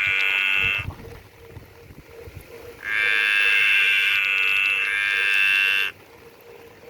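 Green tree frog calling in two bouts: one that stops just under a second in, and another about three seconds long starting about three seconds in.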